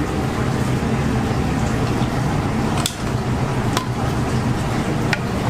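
Steady kitchen noise with a low machine hum, and a few sharp clicks about three, four and five seconds in.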